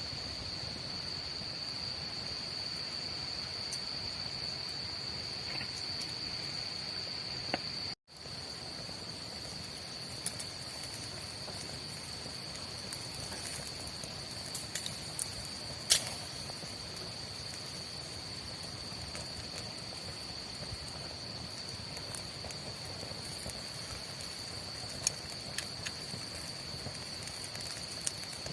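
Crickets trilling in a steady, unbroken high chorus, with a few scattered sharp pops and clicks, one louder about halfway through. The sound cuts out for an instant about a third of the way in.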